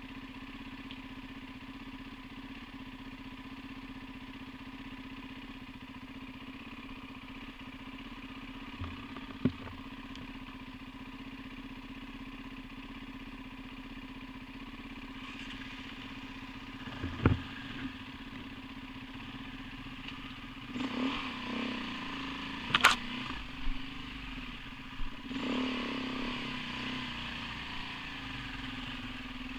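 Off-road motorcycle engine idling steadily. Between about 21 and 27 seconds in it is revved in short bursts as the bike is worked up a steep muddy climb, with a few sharp knocks scattered through.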